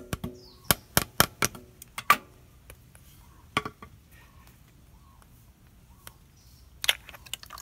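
A small piece of wood tapping the metal oil filter cover on a KTM 690 engine to free it from its O-ring seal: about five sharp taps in the first two seconds. A few more knocks and clicks follow as the loosened cover is worked off by hand.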